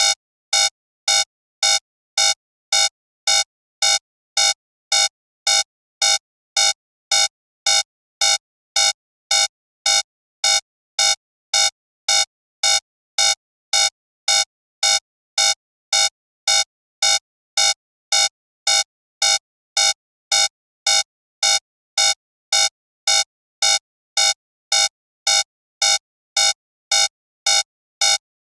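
Digital alarm clock beeping: short, identical, buzzy electronic beeps repeating evenly about twice a second, signalling that the five-minute countdown has run out.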